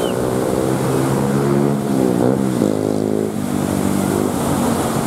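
Outboard motor on a speedboat towing an inflatable donut ride, running hard; its pitch dips and climbs back about two seconds in, then the engine note fades into the wash of waves and wind.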